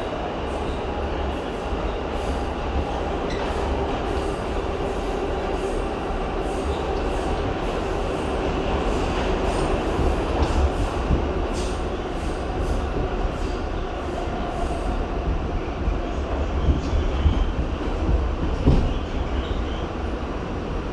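R68 subway train running on the track: a steady low rumble with a faint wavering tone and many irregular clicks of the wheels over rail joints.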